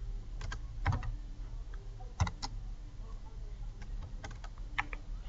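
Slow, hesitant typing on a computer keyboard: a few single keystrokes spaced about a second apart, with pauses between them.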